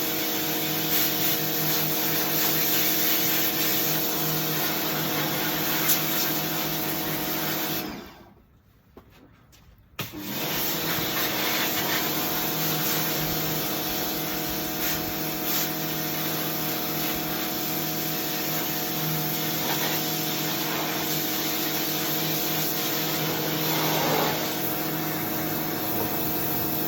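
WAP electric pressure washer running with a steady motor whine and hiss. It cuts out about a third of the way in, stays quiet for about two seconds, then starts again abruptly and runs on steadily.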